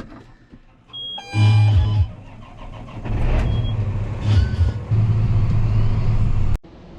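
Farm tractor engine running. A brief high tone and a loud pitched burst come about a second in, then a steady low engine rumble that cuts off suddenly near the end.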